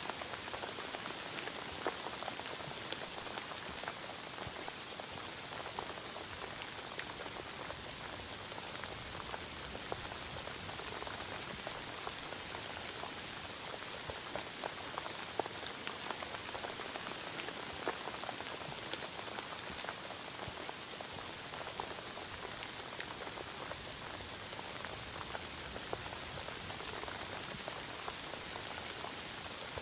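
Steady rain falling: an even hiss with many small, scattered drop ticks.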